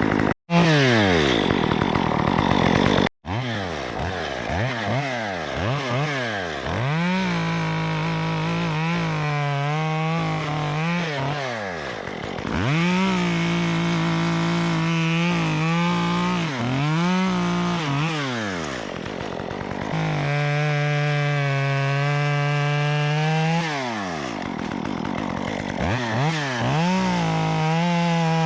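Stihl MS 194T top-handle chainsaw with a 1/4-inch ripsaw chain conversion, revved repeatedly and held at full throttle through several cuts in wood, its engine pitch dropping back toward idle between cuts. The sound breaks off briefly twice in the first few seconds.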